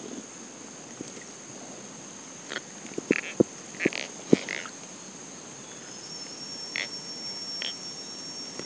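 Insects droning steadily at a high pitch, with a second thin insect tone joining about six seconds in, and short chirping calls scattered through. A few sharp knocks come close together about three to four and a half seconds in.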